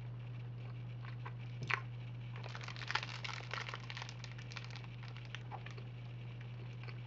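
A person biting into and chewing a snack held in a plastic wrapper, with a single click and then a few seconds of dense crackling starting about two and a half seconds in. A steady low hum runs underneath.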